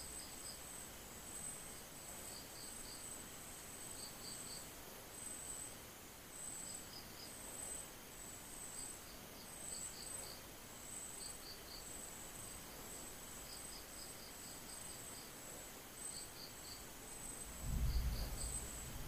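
Crickets chirping in the background: a high-pitched chirp repeating over and over, with a second insect calling in short groups of about three pulses. A single low thump near the end.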